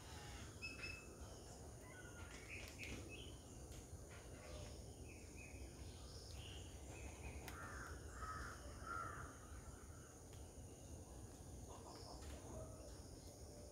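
Faint garden ambience with scattered short bird calls, and three louder, harsher calls about eight to nine seconds in, over a steady low rumble.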